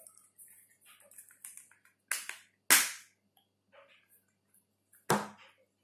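Press-stud snap buttons on a leather axe sheath clicking: three sharp snaps, about two seconds in, a loud one just after and one near the end, with faint rustling of leather between.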